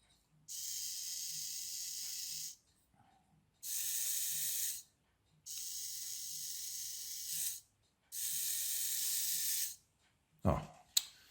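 Small electric drive motors of a toy line-follower car whirring in four short bursts, each one to two seconds long, as they are switched on and off. A short knock follows near the end.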